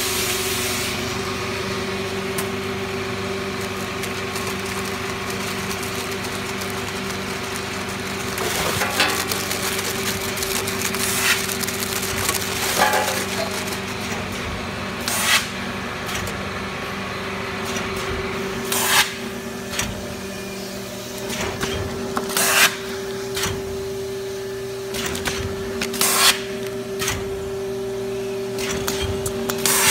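Automatic vertical cartoner and its infeed conveyor running: a steady motor hum, with sharp mechanical clacks every few seconds as the machine cycles.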